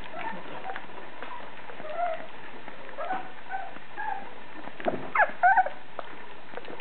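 Thai Ridgeback puppy whimpering in short, high squeaks, with a louder run of rising squeals about five seconds in.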